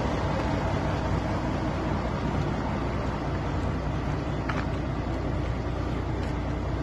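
Dump truck's diesel engine running with a steady, deep rumble as the truck pulls slowly away.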